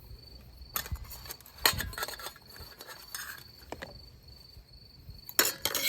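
Lightweight camping tableware, dishes and cutlery, being handled and stacked, clinking and knocking together a few times with a louder cluster of clinks near the end.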